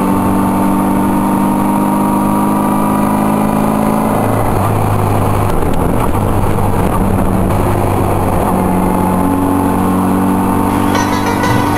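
Motorcycle engine running at road speed, heard from the rider's seat behind the fairing, with steady wind and road noise. The engine note changes about four seconds in.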